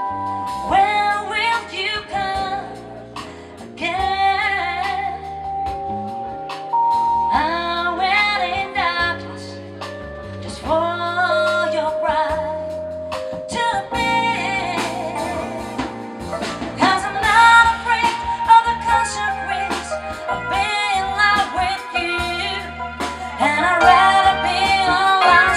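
Female singer performing live with a band, her voice rising and falling with vibrato over electric bass and a drum kit.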